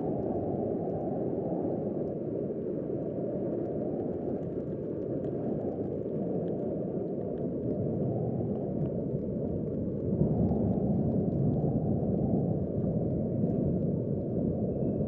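Strong wind buffeting the microphone: a steady low rumble that grows a little louder about ten seconds in.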